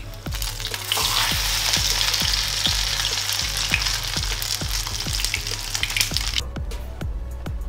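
Battered pork chop frying in hot vegetable oil in a pan: a loud, steady sizzle that starts about a second in and cuts off sharply near the end. Background music with a steady beat runs underneath.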